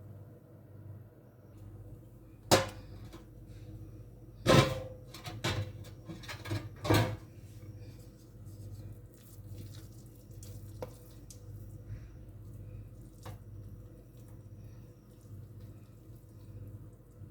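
Kitchen knocks and clatters as dishes or a container are handled and set down: one sharp knock, then a cluster of louder knocks in quick succession a few seconds later, and two faint clicks near the end, over a steady low hum.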